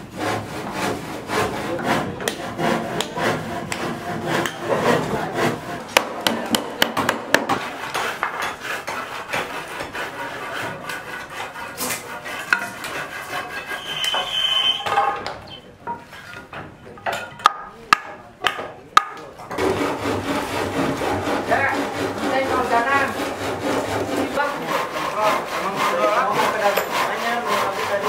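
Hand saws cutting plywood and timber formwork boards in quick back-and-forth strokes. A few sharp knocks fall in a quieter stretch past the middle.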